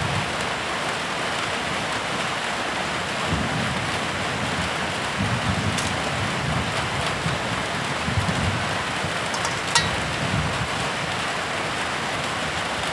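Steady rain falling, an even hiss throughout, with a few soft low thumps in the middle and one sharp click about ten seconds in.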